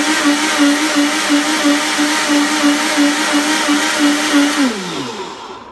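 Countertop blender motor running at full speed, puréeing onion, garlic and spices with water into a thick marinade, loud, its hum pulsing about three times a second. Near the end it is switched off and the motor spins down with a falling pitch.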